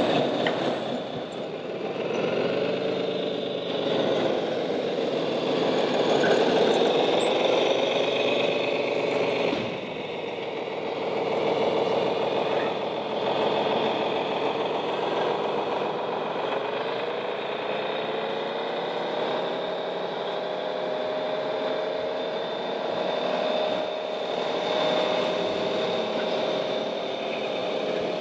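Radio-controlled scale model trucks running, with a diesel-like engine sound that rises and falls in pitch several times as the throttle is opened and eased.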